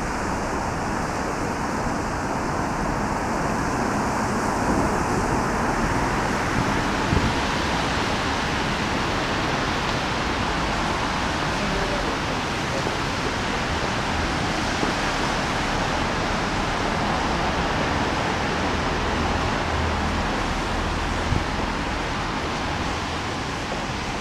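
Steady, even hiss of a rainy street: rain and car tyres on wet road.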